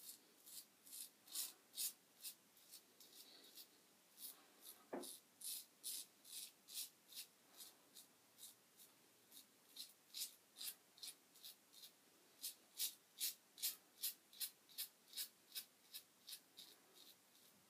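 Safety razor (Merkur 37C slant with a Treet carbon steel blade) scraping through stubble in short, quick strokes, two or three a second.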